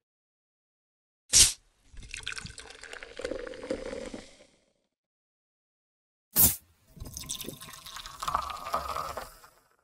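A soda bottle opening with a sharp pop and hiss, then fizzing and pouring, heard twice, each time distorted by audio effects.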